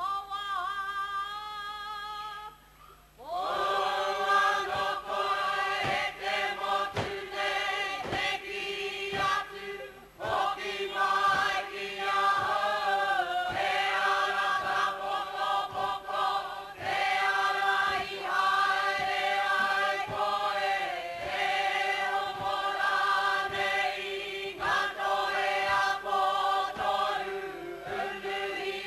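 Māori kapa haka group of women and men singing together. A single voice opens the song and the whole group joins about three seconds in, over a regular beat of sharp strikes about twice a second.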